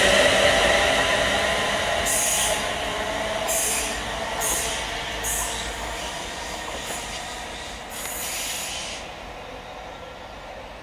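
Class 350 Desiro electric multiple unit running away round a curve, its electric traction whine loud at first and fading as it recedes. About six brief high wheel hisses and squeals break in along the way.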